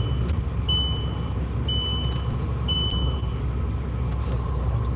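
Steady low rumble of a car's running and road noise, heard from inside the car. Over it come three short, high electronic beeps about a second apart in the first three seconds.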